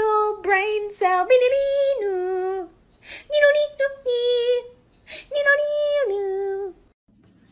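A high voice singing a simple tune in long held notes that step between a few pitches, phrase by phrase with short pauses between.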